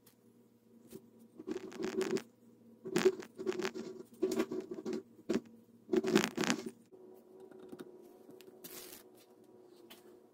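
Blue painter's tape being pulled off the roll in several short rips and pressed around the rim of a plastic container. There are about five bursts in the first seven seconds, then a single fainter one near the end.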